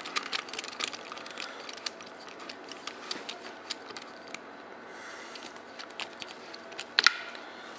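Screwdriver with a hex socket bit being turned on a stud in a plastic rifle forend: a run of irregular small clicks and ticks as the tool turns and rubs against the part, with a sharper knock about seven seconds in.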